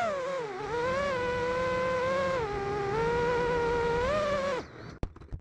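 FPV quadcopter's brushless motors whining, the pitch rising and falling with the throttle. Near the end the whine cuts off abruptly and a few sharp knocks follow as the quad comes down.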